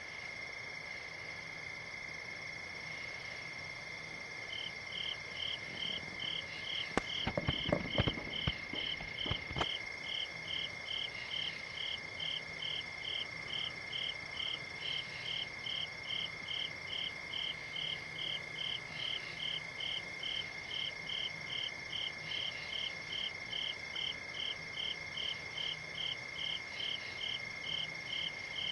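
Night insects calling: a steady high trill throughout, joined about four seconds in by a second caller chirping about three times a second. A few low thumps sound around seven to nine seconds in.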